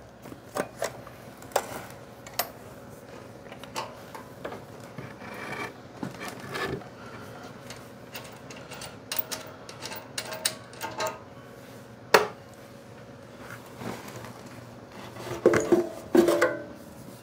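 Hand work on a small motorcycle's fuel tank and its fittings as it is unfastened and lifted off: scattered clicks, light knocks and rubbing. There is a sharp knock about two-thirds of the way through and a short burst of clattering near the end.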